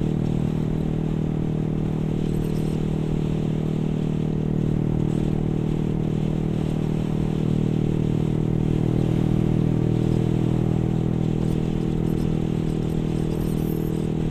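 Yamaha R15 V3's single-cylinder engine, fitted with an aftermarket exhaust, running at a steady cruise of about 67–69 km/h. The engine note swells a little about two-thirds of the way through.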